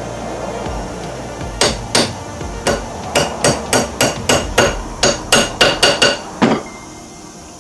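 Hammer striking steel about fifteen times in quick succession, each blow ringing, as a U-joint on a drive shaft is knocked apart to drive out its bearing cap.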